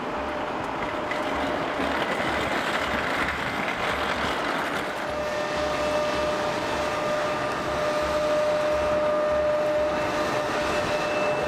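City street traffic noise, a steady rumble and hiss of passing vehicles, with a steady engine-like whine joining about five seconds in.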